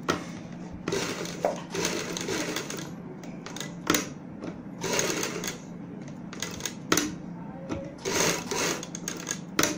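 Sewing machine stitching a fabric strip along the buckram in short runs, stopping and starting again and again as the seam follows a curve. A steady hum runs underneath, with a few sharp clicks between runs.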